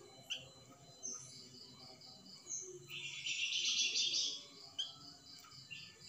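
Caged flamboyan songbird singing: short high chirps over a steady run of evenly spaced high notes. About three seconds in comes a loud, dense burst of song lasting about a second, the kind of burst its keepers call a 'tembakan'.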